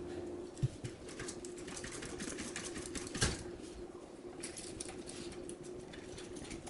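Small clicks and scrapes of copper wires being twisted and pulled out of the back-stab holes of an electrical receptacle, with a sharper click under a second in and another about three seconds in, over a faint steady hum.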